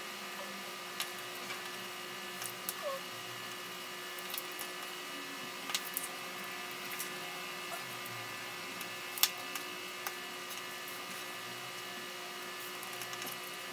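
Paracord being handled and tied, making faint scattered clicks and rustles, with one sharper click about nine seconds in. A steady hum runs underneath.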